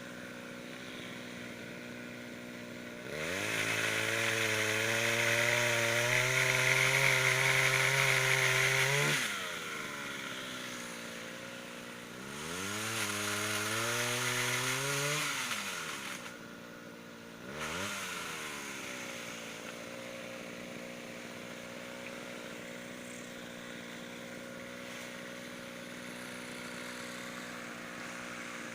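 Mitsubishi TL26 two-stroke engine on a pole saw, idling steadily, revved up hard twice for several seconds each and blipped once briefly, then settling back to idle.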